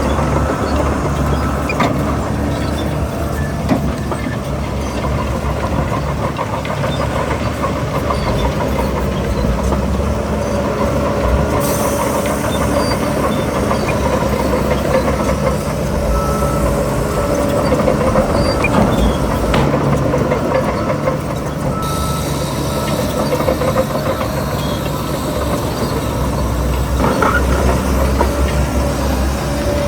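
Heavy diesel earthmoving machinery running steadily under load, with scattered metallic clanks and knocks over the engine drone.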